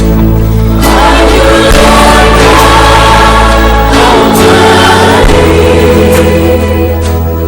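Christian worship song: voices singing together over sustained chords and steady bass notes.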